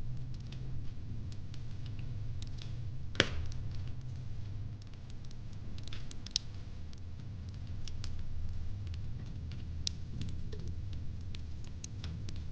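Wood fire crackling: irregular sharp snaps and pops over a low steady rumble, with one loud pop about three seconds in.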